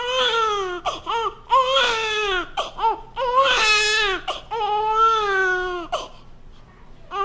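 Newborn baby crying in a run of long wails with short gasping breaths between them, falling quieter about six seconds in.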